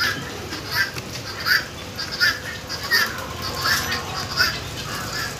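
Aseel chickens in a pen giving short calls, repeated evenly about once every three-quarters of a second.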